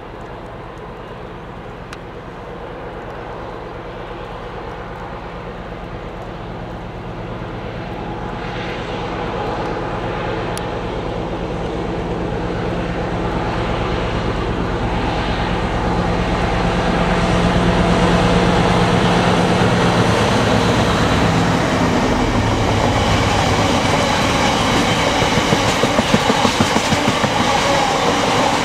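Class 60 diesel locomotive hauling a train of empty oil tank wagons approaches and passes, its engine's steady low drone growing louder, then its note drops about two-thirds of the way through. Near the end the empty tank wagons roll by with a regular clickety-clack of wheels over rail joints.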